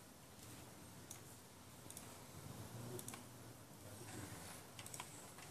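Faint, scattered clicks of a computer mouse and keyboard being operated, about eight at irregular intervals, over a faint low hum.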